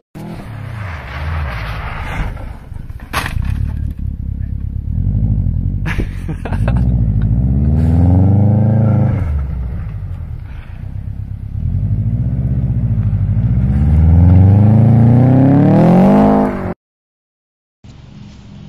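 Subaru Impreza's flat-four engine revving up and down repeatedly as the car slides sideways on snow, with a few sharp knocks in the first few seconds. The engine sound cuts off suddenly near the end.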